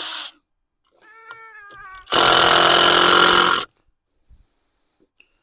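Cordless power drill driving a big wood screw into framing lumber: a brief low-speed whine about a second in, then a loud run at full speed for about a second and a half that stops suddenly, the screw sunk almost too far.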